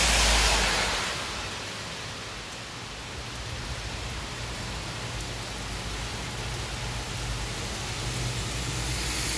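Heavy rain falling on a wet road, a steady hiss. A van's tyres swish through the water as it passes at the start, the sound fading away over the first second or so.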